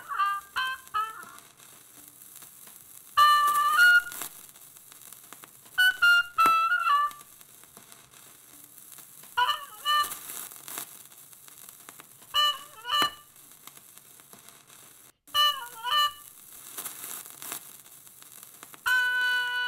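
Background music: short melodic phrases of about a second each, roughly every three seconds, with quiet gaps between them, and a held chord starting near the end.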